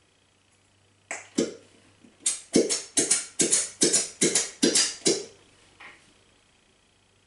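Plastic glue bottle being squeezed hard into a bowl, sputtering out air and glue in a quick run of about a dozen spurts, roughly three a second, then one faint spurt.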